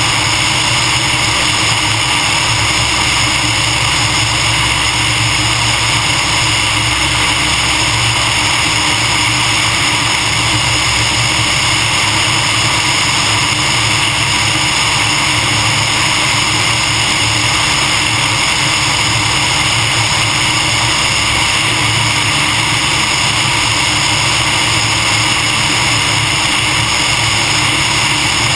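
Steady rush of airflow over a wing-mounted camera, with a Cessna 150M's Continental O-200 four-cylinder engine running underneath, throttled back for landing.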